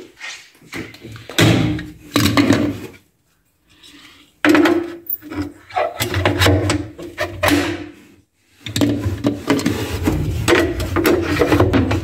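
Plastic lint-filter baskets being pushed and clicked into their slots on the inside wall of a top-loading washing machine's drum: a run of irregular plastic scrapes and knocks, broken by two short pauses.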